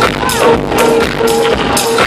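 Electronic music from a live set played loud over a venue sound system: a steady beat with a high cymbal tick about twice a second under held synth notes.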